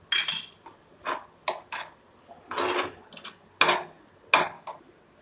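Metal spoon scraping and knocking against a non-stick frying pan while stirring onion-tomato masala: about seven separate strokes, the longest scrape about two and a half seconds in.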